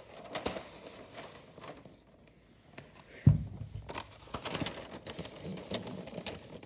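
Rustling and crinkling of a roll of Christmas wrapping paper being handled and unrolled, with a single loud thump about halfway through.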